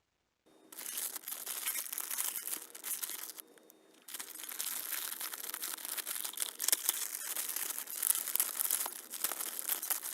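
Crinkling and rustling from an electronics organizer case being handled, starting about half a second in, with a brief lull about three and a half seconds in.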